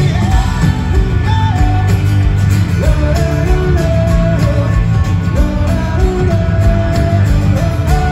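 Live rock band playing loud through a festival PA, heard from within the crowd: guitars, bass and drums under a melody of long held notes.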